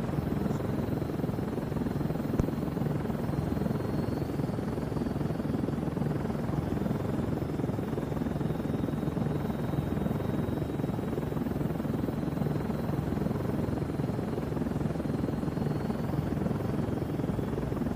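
Helicopter in flight: a steady, unbroken drone of rotor and engine.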